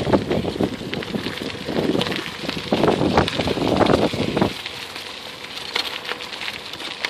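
Bicycle tyres rolling over a path of dry fallen leaves: a dense crackling and rustling that becomes fainter about four and a half seconds in.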